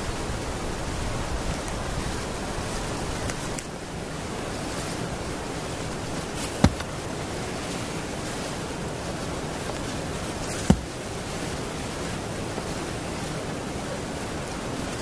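Steady rain hissing on a wet forest floor, with two sharp clicks a few seconds apart in the middle.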